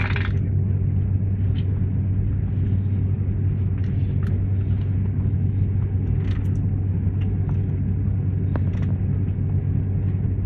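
Steady low rumble of an airliner cabin while the plane taxis after landing, with the engines running and the aircraft rolling along the taxiway. A few faint clicks sound through it.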